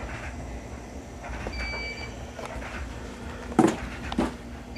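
Hands handling cables and a video connector while plugging it back in: rustling and small clicks, then two loud knocks about half a second apart near the end.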